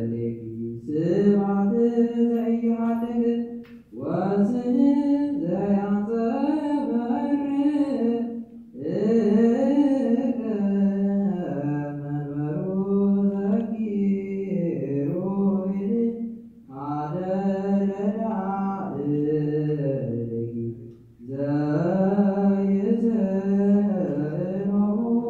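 Ethiopian Orthodox liturgical chant (zema) for the feast of Mary, sung in long phrases that slide between notes. Short breaks for breath come about every four to five seconds.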